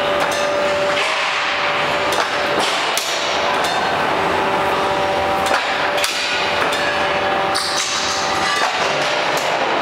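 CNC angle steel punching line at work: repeated sharp metallic bangs and clanks at an uneven pace, over a steady machine hum with a held tone.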